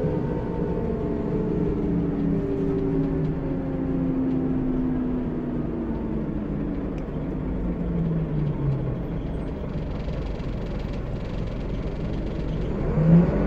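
A Scania L94UB single-deck bus's rear-mounted diesel engine and drivetrain, heard from inside the passenger cabin while under way. Over a steady low rumble, the engine note slides slowly down in pitch through the first part, then rises and swells briefly near the end.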